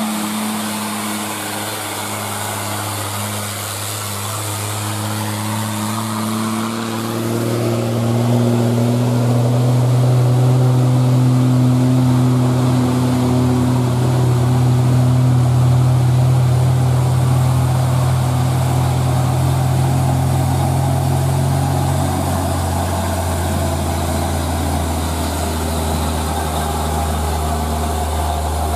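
Diesel engines of Hino dump trucks loaded with rock, running under load as they climb a long, steep grade. The engine note is steady, rises in level about a third of the way in, and drops lower about three quarters of the way through.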